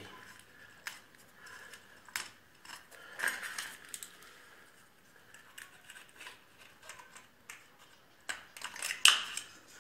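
Scattered light clicks and taps of hands handling tools and small engine parts during engine work, with a sharper click and a short flurry of taps near the end.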